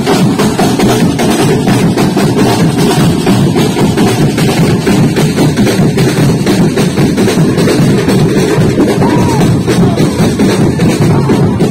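Drum ensemble beating large drums with soft-headed mallets in unison, a loud, steady, driving rhythm with no break.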